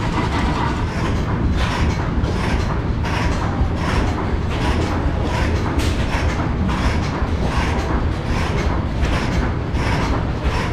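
Antique stationary gas engine running, with sharp irregular pops about once or twice a second over a steady low rumble.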